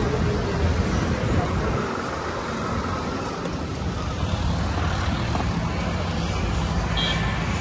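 Street ambience: steady road-traffic rumble with indistinct background voices.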